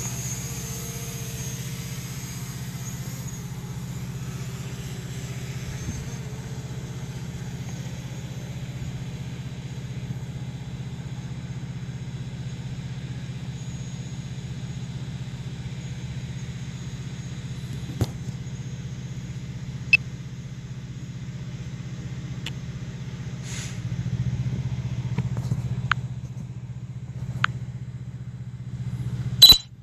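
Steady low hum of an idling motor vehicle engine, unchanging throughout, with a few short sharp clicks in the second half and a louder click near the end.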